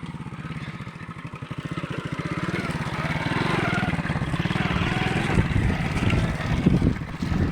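Alpha moped's small single-cylinder four-stroke engine running with a fast, even beat, revving up and growing louder from about two seconds in as the moped pulls along the wet track.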